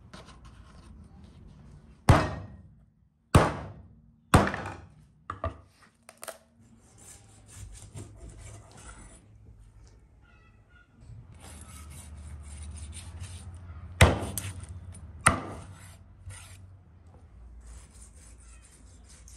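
Large kitchen knife cutting a raw rack of lamb ribs into single ribs on a thick wooden chopping board: sharp thunks as the blade goes through and strikes the wood, four in quick succession and two more later, with scraping and slicing through meat between them.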